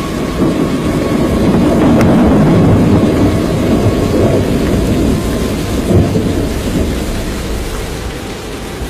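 Loud storm rumble, swelling over the first few seconds and slowly fading, with a sharp low thump about six seconds in, over a steady rain-like hiss.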